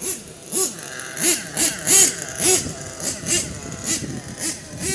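HoBao MT radio-controlled monster truck's motor revving in quick short throttle bursts, about two a second, each rising and falling in pitch.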